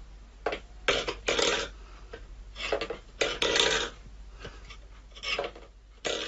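A cat pawing at a stainless-steel bowl, scraping and clattering it on a wooden floor in a string of short, irregular bursts.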